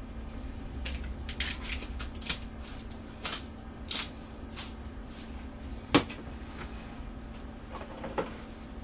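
Spice jar shaken over a metal mixing bowl: a quick run of short rattles and taps, then a single sharp knock about six seconds in and a few lighter taps near the end.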